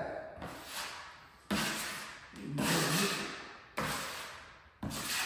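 Three sudden thumps, each dying away over about a second.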